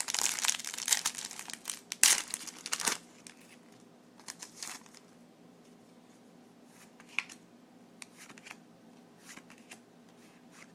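Foil booster-pack wrapper crinkling and being torn open for about the first three seconds, then only a few faint light ticks.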